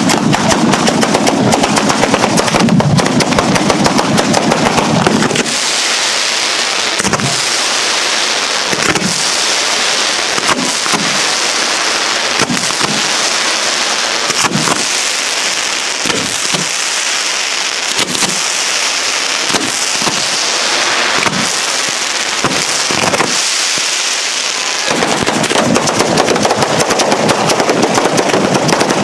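Batteria bolognese ground firework barrage: firecrackers going off in a dense, unbroken rattle. It is heavier and deeper for the first five seconds and again near the end, with a thinner, higher crackle and occasional louder bangs in between.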